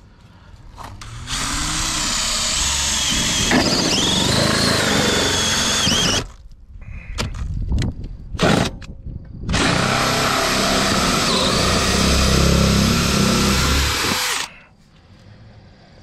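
Cordless drill spinning a hole saw that cuts through metal diamond-plate sheet. It runs in two long stretches of about five seconds each, with a few short bursts between them.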